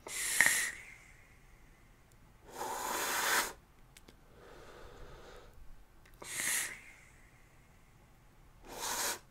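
A person drawing on a vape box mod and then blowing vapour out and sharply sucking it back in: four short bursts of breath rush a few seconds apart, the first and third with a faint high whistle.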